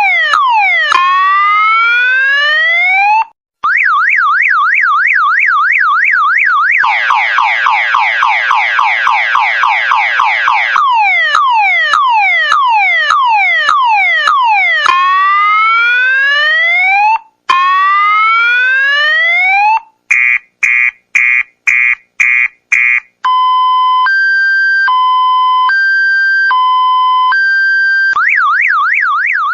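Electronic multi-tone alarm siren cycling through its tones. It runs through rapid falling "shot" zaps, rising whoops and a fast wiu-wiu warble. Then comes a dense rattling run of quick sweeps, more zaps and whoops, a string of short beeps and a slow two-note hi-lo, and finally the warble again.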